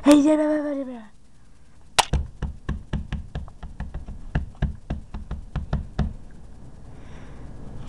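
A short voiced cry with a falling pitch at the start, then about four seconds of rapid, uneven sharp knocks and taps that stop suddenly.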